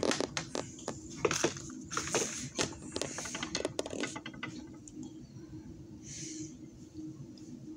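Handling noise of a hand-held phone: a run of quick, sharp clicks and rattles over the first four seconds, then a steady low hum with a short hiss about six seconds in.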